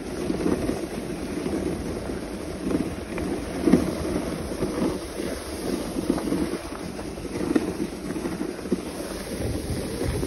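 Wooden dog sled's runners sliding and scraping over a packed snow trail, with wind buffeting the microphone: a steady, uneven noisy rush with small crunching bumps.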